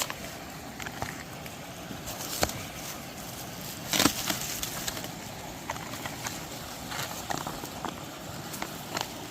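Scattered light clicks and knocks of camp cooking gear being handled over a steady rushing hiss, with one louder knock about four seconds in.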